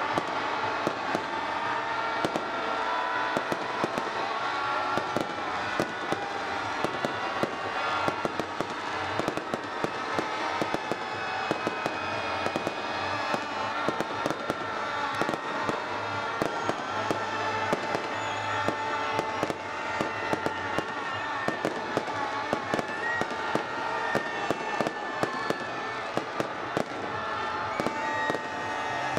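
Fireworks display: a rapid, irregular stream of bangs and crackles from aerial shells bursting, over a continuous din with some held tones.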